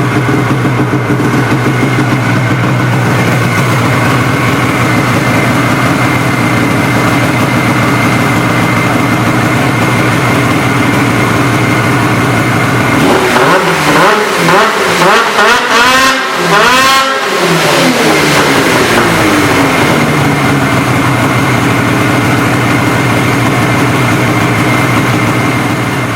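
2013 Polaris RMK Assault snowmobile's two-stroke engine, fitted with an aftermarket GGB mountain can exhaust, idling steadily. About halfway through the throttle is blipped several times in quick succession, and the engine then settles back to idle.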